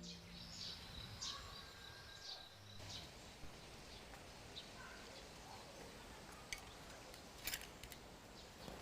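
Faint outdoor background noise with several short bird chirps in the first few seconds, then a few sharp clicks near the end.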